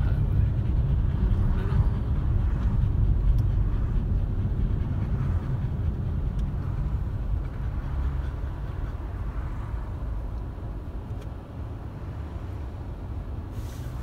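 Low rumble of a car's engine and tyres on a wet road, heard inside the cabin while driving, getting quieter in the second half as the car slows.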